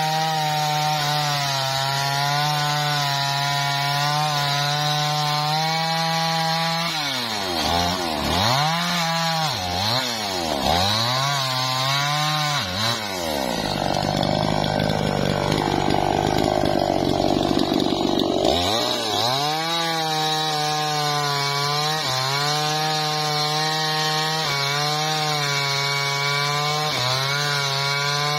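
Two-stroke chainsaw cutting a teak log. The engine holds a steady note under load in the cut. A few seconds in it is revved up and down several times while the bar is out of the wood, then it settles back into a steady loaded note as it cuts again.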